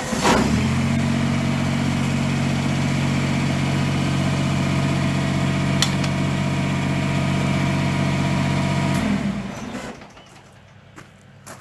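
Kubota BX sub-compact tractor's three-cylinder diesel engine speeding up from idle as the backhoe hydraulics lower the bucket to the ground, running steadily for about nine seconds, then dropping back to a quiet idle. A single sharp click sounds about halfway through.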